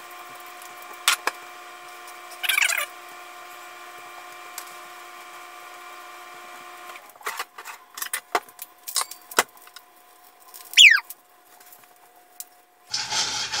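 A steady hum with several pitches that stops about seven seconds in, followed by a run of light knocks and clatters of a frying pan being handled on a stovetop, with one sharp falling squeak near the end.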